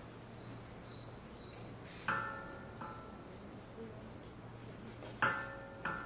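A small metal bell or chime is struck three times: once about two seconds in, then twice close together a little past five seconds. Each strike rings with several tones and fades within about a second. Faint high bird chirps come in the first two seconds.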